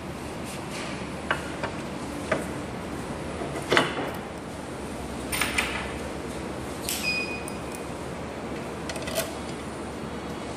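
Scattered knocks and clinks of a metal handlebar stem being handled and set into its mount on a self-balancing scooter, over a steady background hum. The loudest knock comes a little past a third of the way in, and one just past the middle rings briefly like struck metal.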